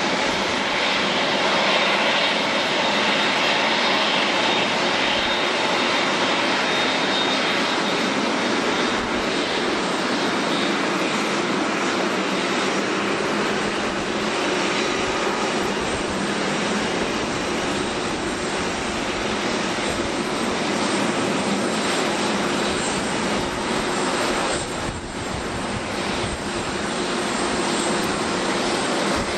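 Boeing 747-8's GEnx jet engines running at low taxi power as the airliner rolls past: a steady jet engine noise that dips briefly near the end.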